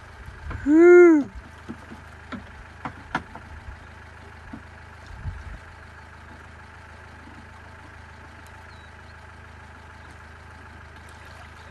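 Vehicle engine idling steadily. About a second in, a loud short shout rises and falls in pitch, followed by a few light knocks over the next few seconds.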